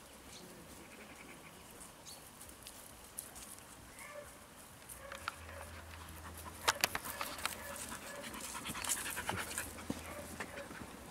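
Dogs panting close by, with scattered clicks and rustles that get busier from about six seconds in.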